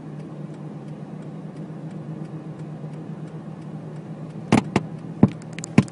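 Steady low drone of a car driving, heard inside the cabin. Near the end come a few sharp, unevenly spaced clicks.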